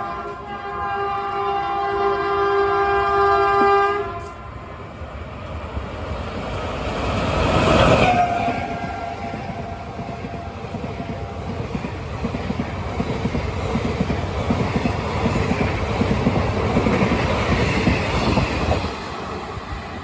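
A WAP-5 electric locomotive sounds its multi-tone air horn in one long blast for the first four seconds as it approaches. It rushes past about eight seconds in with a short horn note, and its coaches follow at speed with steady wheel clatter until the sound drops away near the end.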